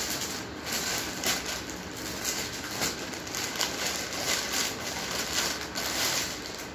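Rustling and crinkling of clothes and their packaging being handled, in many short irregular crackles.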